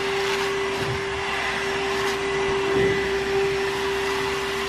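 Cordless stick vacuum cleaner running with a steady motor whine and suction hiss as its nozzle is worked over carpet and along a sofa.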